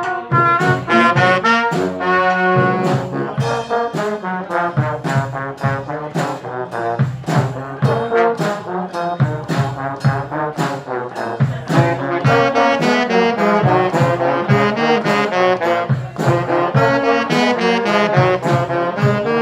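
Brass band playing live: brass horns, trombone prominent, carrying a melody over a steady, evenly spaced percussive beat.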